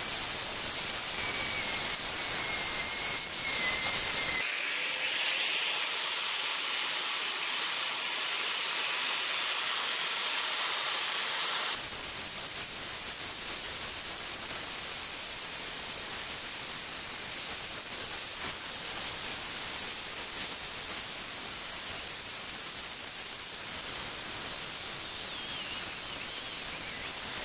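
A high-speed rotary tool with a small abrasive stone grinding rusty steel, its motor whining at a steady pitch. About four seconds in it cuts to a steady hiss, then a few seconds later to an angle grinder with a disc grinding the steel blade of a draw knife and throwing sparks, its whine wavering with the pressure and sliding down near the end.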